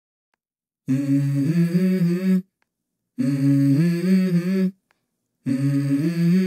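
A voice humming a slow melody in three short phrases, each about a second and a half long, with brief pauses between them and steady held notes that step up and down in pitch.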